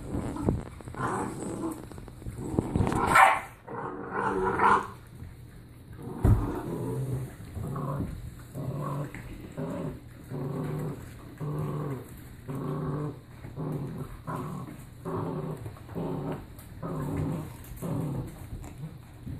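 Seven-week-old puppies growling while tugging at a toy: a louder, noisier outburst about three seconds in, then a steady run of short growls roughly once a second.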